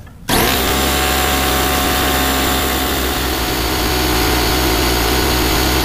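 Sears Craftsman belt-drive air compressor switched on about a third of a second in, its motor and pump then running steadily with a high whine on its new drive belt as it builds tank pressure.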